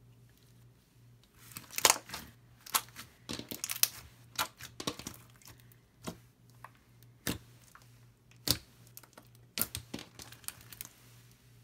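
Fishbowl-bead slime being squeezed and pressed by hand, giving irregular crunchy crackles and pops as the beads shift and the slime pulls apart. The crackling starts about a second and a half in.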